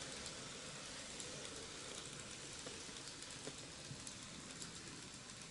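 N gauge Kintetsu model train running along ballasted sectional track: a soft, steady rolling hiss with faint scattered clicks of the wheels over the rail joints, growing a little fainter near the end as it moves away.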